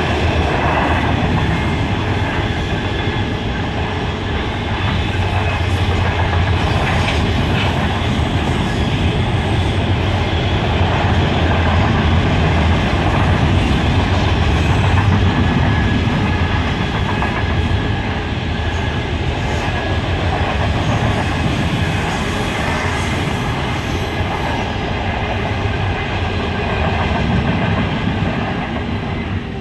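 Open-top coal hopper cars of a long freight train rolling past, wheels clattering on the rails, fading near the end as the last cars go by.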